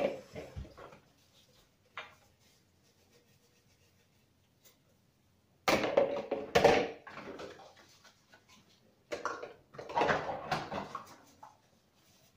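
Dishes being washed by hand at a kitchen sink: a few light knocks, then two louder spells of clatter about six and ten seconds in.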